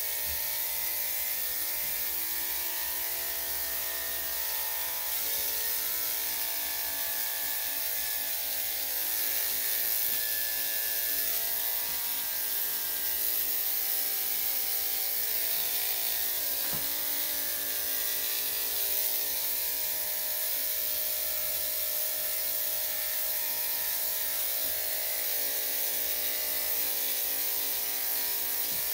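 Electric dog grooming clippers running steadily with an even buzz as they shave through a dog's thick coat.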